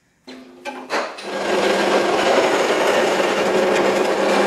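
Horizontal metal-cutting bandsaw cutting through steel box-section tube with a fine-toothed blade. It starts about a second in, then gives a loud, steady sawing noise over a low, even motor hum.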